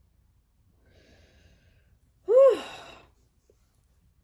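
A woman's short wordless exclamation, one loud voiced syllable whose pitch rises and then falls, about two seconds in, after a faint breath.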